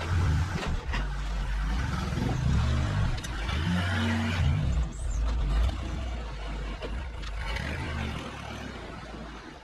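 Engine of a truck or similar heavy vehicle running, its revs stepping up and down, with a steady noisy wash over it.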